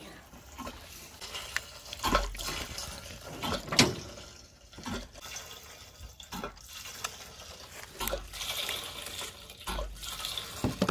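Gasoline pouring from a gas can into a Cub Cadet riding mower's fuel tank, an uneven trickling fill, with a few sharp knocks from handling the can.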